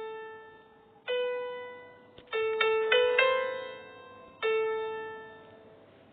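Slow, sparse piano notes, each struck and left to ring and fade, with a quick run of four notes a little past two seconds in.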